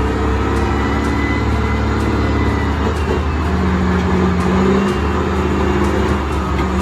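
Heavy truck engine running steadily under load, a continuous low drone whose pitch shifts a little about halfway through.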